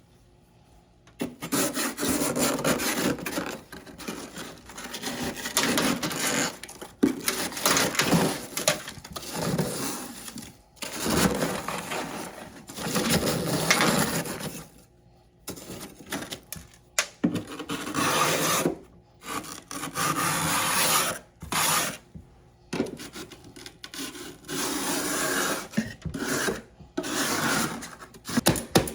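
Close-miked chewing of crunchy humidifier freezer frost chunks: dense crunching in bursts a few seconds long, with short breaks between bites.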